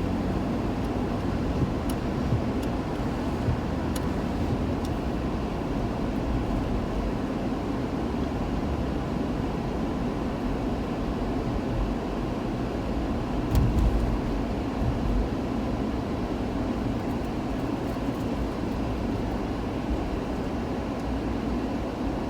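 Steady low rumble with a hiss, of road noise in a moving car's cabin, with a brief louder thump a little past halfway.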